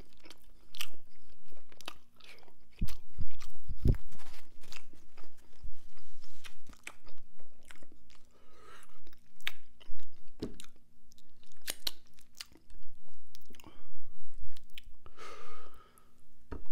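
Close-miked chewing of rotisserie chicken, with wet, irregular mouth clicks and smacks and a few dull thumps about three and four seconds in.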